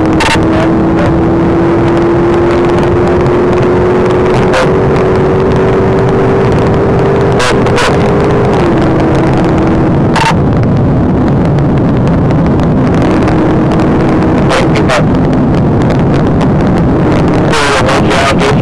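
Police patrol car at full acceleration during a pursuit, heard from inside the cabin as loud, steady engine and road noise. The engine note climbs slowly and then drops abruptly about nine seconds in and again near fifteen seconds, with scattered sharp clicks and knocks over it.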